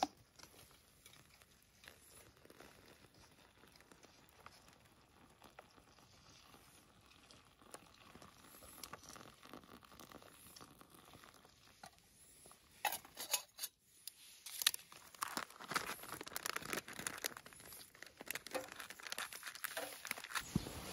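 Small clicks, scrapes and crackling from hands working a little wood-burning camp stove and its metal pot, faint at first and getting busier and louder about halfway through.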